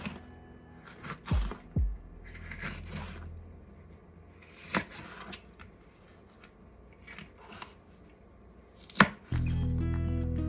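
Chef's knife slicing a red pepper on a plastic cutting board: a few separate, irregular knocks of the blade striking the board. Background music comes in near the end.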